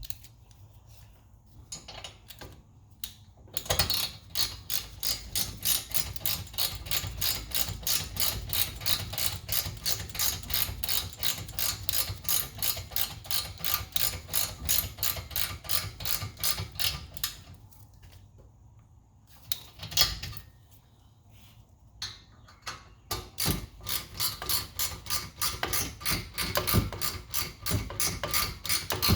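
Hand ratchet wrench clicking steadily as the brake caliper slide pin bolts are tightened, a few clicks a second, in two long runs with a pause of a few seconds between them.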